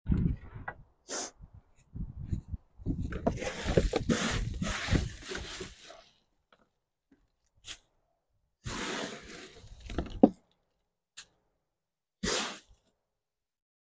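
Rustling and scraping of wood-chip mulch being gathered by hand from the bed of a plastic garden cart, in several separate bursts. The longest burst comes a few seconds in and a shorter one near the end.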